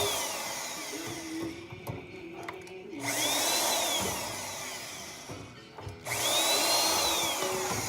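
Power drill running in bursts about every three seconds, its motor whine rising in pitch as it spins up and falling away as it slows, while taking a microwave apart.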